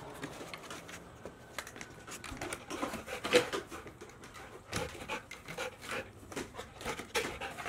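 A dog panting in excitement, quick irregular breaths, with a brief pitched whine about three seconds in.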